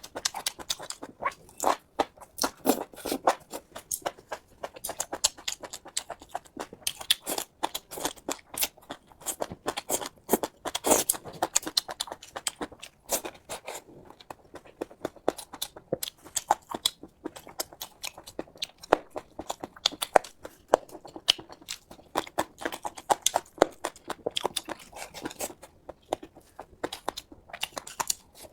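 A person chewing and biting food close to the microphone, with a dense, irregular run of sharp wet clicks, smacks and crunches.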